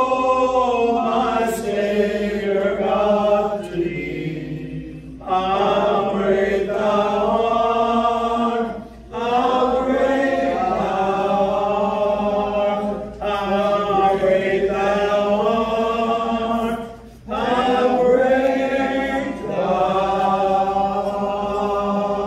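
Two men singing a song together without accompaniment, in long held phrases with short breaks for breath about every four seconds.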